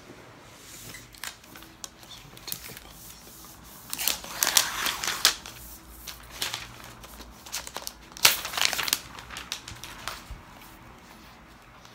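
Crinkling and rustling of packaging while a new MacBook Pro is handled, with scattered light taps and two louder bursts of rustling about four and eight seconds in.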